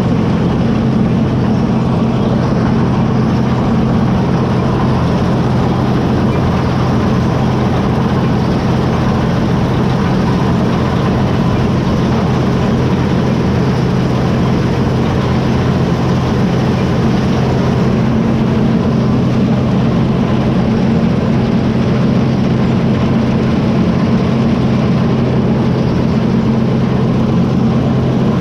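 Early axial-flow combine harvester running steadily under load, its engine holding a constant low hum over the mechanical noise of the threshing machinery.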